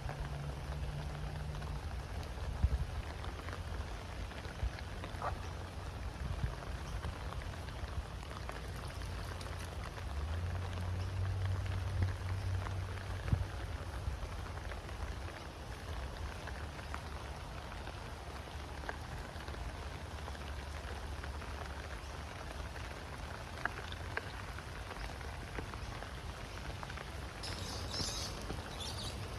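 Steady rain falling, with scattered louder drops ticking and a low steady rumble underneath.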